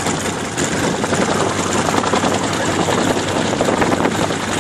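Bell UH-1 "Huey" helicopter in flight, its two-blade main rotor and turbine running steadily.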